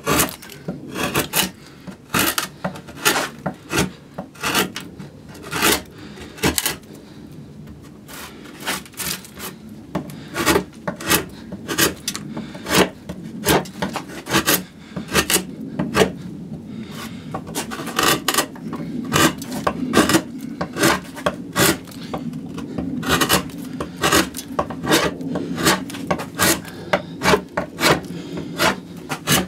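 Gouge cutting into a spruce cello top while roughing out the arching: short, sharp scraping cuts in quick succession, about two a second, with a couple of brief pauses.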